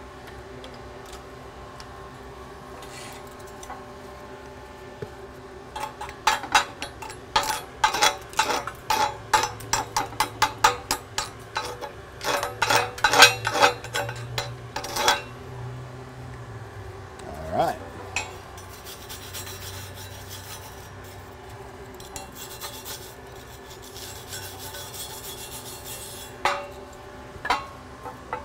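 Slag being scraped and brushed off a flux-core root-pass weld on a steel plate: a rapid, irregular run of scraping strokes from about six to fifteen seconds in, then a few more strokes near the end.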